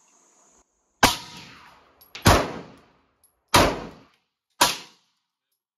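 Four 9mm pistol shots, about a second apart, each with a short fading echo.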